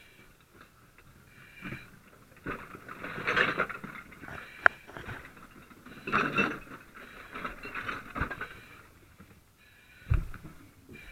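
A firefighter breathing heavily through a breathing-apparatus mask, a swell of breath every second or two. There is a sharp click about four and a half seconds in and a dull thud near the end.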